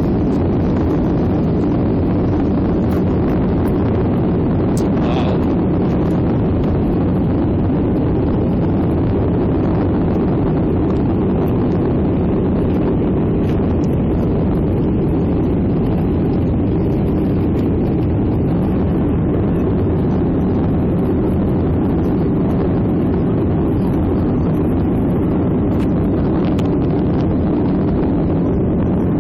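Jet airliner's engines during takeoff, a steady low roar that holds an even level throughout.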